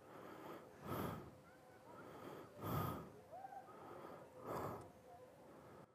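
A person breathing close to the microphone: three short breaths about two seconds apart over quiet background.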